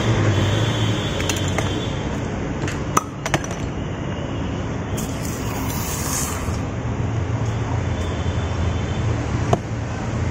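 Glass soda bottle clinking against glass a few times, with a fizzing hiss for a second or so about halfway through as soda is poured into a glass of lemon mixture. Steady street traffic runs underneath.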